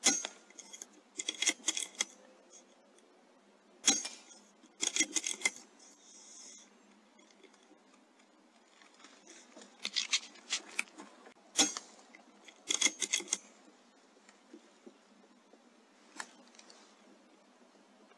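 Three sharp shots from a .22 pre-charged air rifle, several seconds apart. Each comes with a quick run of metallic clicks close by as the action is worked to load the next pellet.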